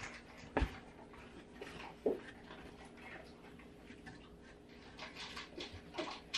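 Paper wrapping and clothing being handled as garments are unpacked from a box: scattered soft rustling, with two light knocks in the first couple of seconds and more rustling near the end. A faint steady hum runs underneath.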